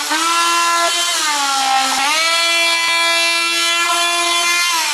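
Corded oscillating multi-tool running and trimming through fibreglass-covered wooden deck at a kayak's stem: a steady high whine whose pitch sags briefly under load about one and two seconds in, then begins to fall near the end as the tool is switched off.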